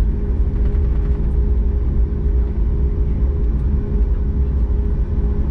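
Cabin noise of a Boeing 737 MAX 8 taxiing, heard from inside: a steady low rumble with a constant hum from its CFM LEAP-1B engines at taxi power.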